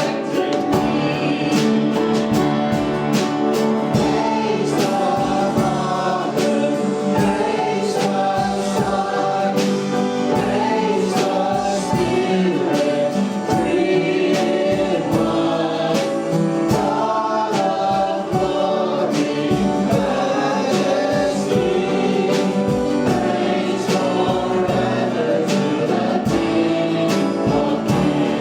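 Christian worship song sung by a group of voices with band accompaniment and a steady drum beat.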